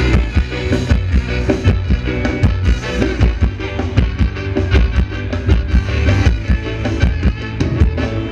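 Live band playing Thai ramwong dance music with a steady beat.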